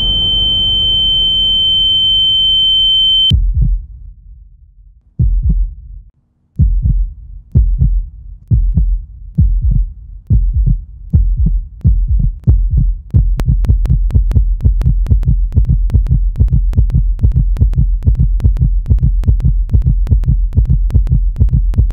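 A steady, high heart-monitor flatline tone over a low drone, cut off suddenly about three seconds in. After a couple of faint thumps and a moment of near silence, a heartbeat sound effect starts: slow low thumps that quicken until they run fast and steady, a heart coming back to life.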